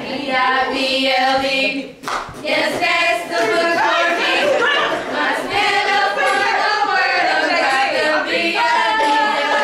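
A small group of women's voices singing unaccompanied, with one sharp hit about two seconds in.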